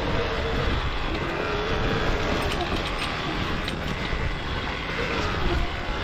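Off-road motorcycle engine running steadily while riding a trail, with a wavering engine tone over a rumble of wind and ground noise.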